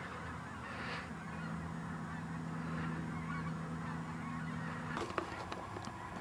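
Distant honking calls from a flock of birds over a steady low hum; the hum cuts off about five seconds in, followed by a few sharp clicks.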